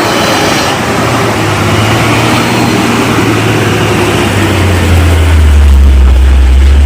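Motor vehicle engine working hard under load on a broken, rain-damaged offroad road. About five seconds in, a deep low drone comes up and the sound grows louder.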